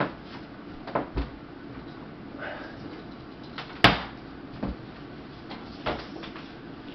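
A string of separate knocks and clunks, about six in all, with one sharp bang near the middle as the loudest. These are the handling noises of a plastic-and-steel folding table being unfolded and set up.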